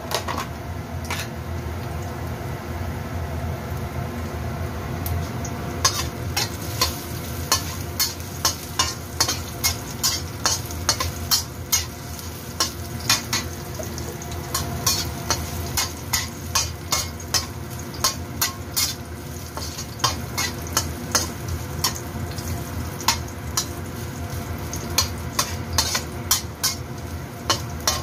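Chopped garlic and ginger sizzling in oil in a stainless steel wok over medium heat, frying toward golden brown. From about six seconds in, a metal ladle stirs them, scraping and clinking against the wok one or two times a second.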